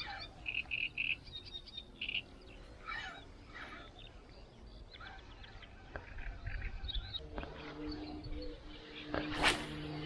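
Frogs and birds calling, with quick runs of short chirping calls in the first couple of seconds. A brief sharp rushing noise, the loudest sound, stands out near the end.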